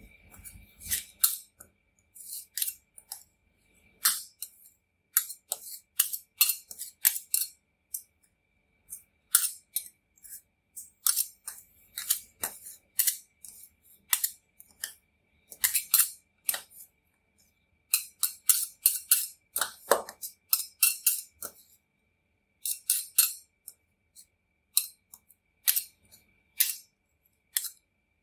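Two steel spatulas chopping and scraping on the stainless steel cold plate of a rolled ice cream machine, working crushed Oreo cookies into the cream base. Irregular sharp metal clacks and scrapes come in quick clusters with short pauses between them. A faint steady high tone sits underneath.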